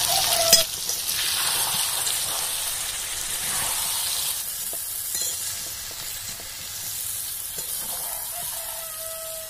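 Chicken and potatoes frying in oil and spice masala in a steel karahi, sizzling steadily while a steel spatula stirs and scrapes them round the pan. There is a sharp knock about half a second in, and the sizzle eases off a little towards the end.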